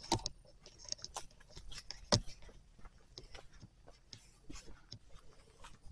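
Close, irregular light clicks and rustling from someone moving about and handling things, with sharper knocks at the start and about two seconds in.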